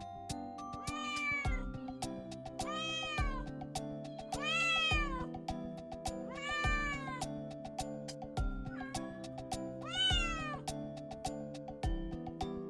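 A kitten meowing five times, each call rising then falling in pitch, over background music.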